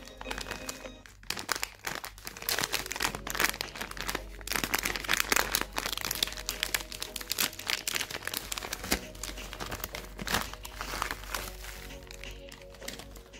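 Crinkly plastic snack bag being handled and torn open, a dense run of irregular crackling and rustling, with background music.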